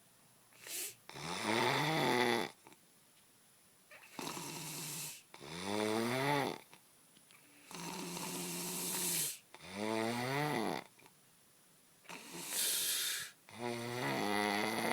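A sleeping person snoring heavily. There are four loud, pitched snores, each rising in pitch over about a second, with a breathy, hissing breath between each one.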